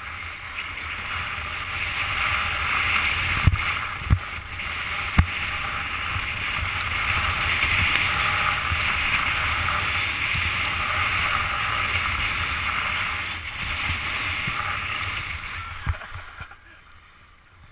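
Skis scraping over packed snow during a downhill run, with wind buffeting a GoPro's microphone and a few dull knocks. The noise dies away near the end as the skier slows to a stop.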